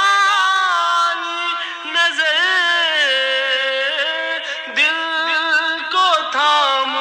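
A single voice singing an Urdu noha, a Shia lament, in long drawn-out notes whose pitch bends and wavers in ornamented runs.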